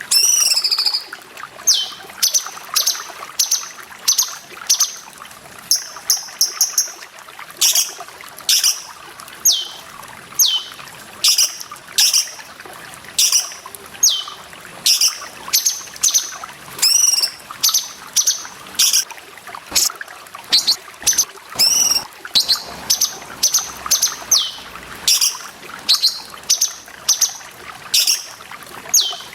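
Cucak cungkok calling over and over: short, sharp high notes that sweep downward, some single and some in quick clusters, about one or two a second, over a steady trickle of running water.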